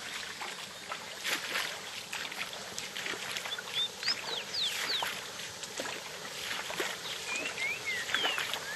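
Small waterfall cascade splashing steadily, with birds chirping short rising and falling notes from about halfway through.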